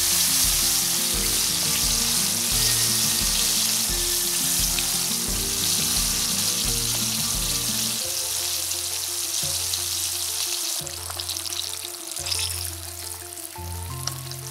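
Galunggong (round scad) shallow-frying in hot oil, a steady sizzle with bubbling that eases noticeably about two-thirds of the way through. Soft background music plays underneath.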